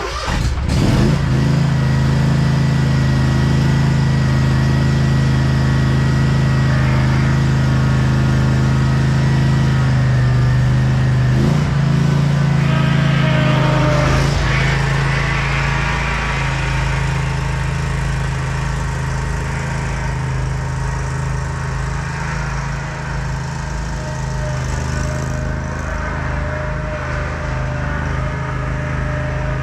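Spartan RZ48 zero-turn mower's engine starting up and running steadily, on a test run after a new drive/pump belt was fitted. About halfway through the sound turns noisier and a little quieter.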